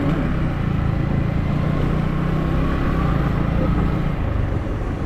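Motorcycle engine running steadily as the bike is ridden.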